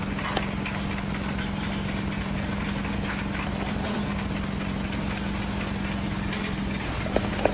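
An engine running steadily with a constant hum, with a few sharp knocks near the end.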